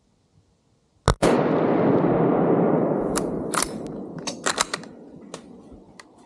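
A single gunshot from a deer hunter's gun about a second in, its report echoing and dying away over several seconds. A scatter of sharp clicks follows.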